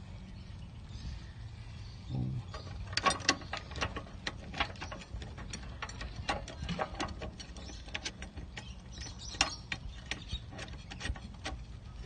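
Irregular small metallic clicks and taps of a nut and washer being handled and fitted by hand onto the brake master cylinder mounting studs, starting about two seconds in, over a steady low hum.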